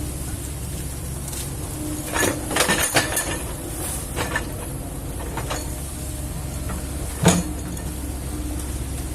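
Kobelco excavator's diesel engine running steadily, with a cluster of metallic clanks about two to three seconds in and a single loud knock about seven seconds in.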